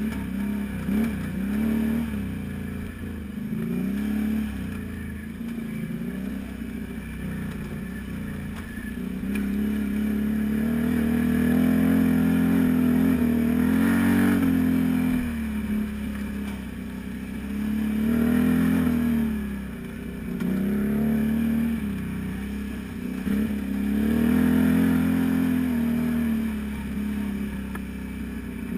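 Can-Am Renegade 500 ATV's V-twin engine pulling along a rough trail, its revs rising and falling again and again as the throttle is worked over the bumps.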